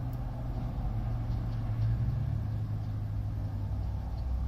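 Narrowboat diesel engine running steadily with a low hum, its note shifting slightly about two seconds in.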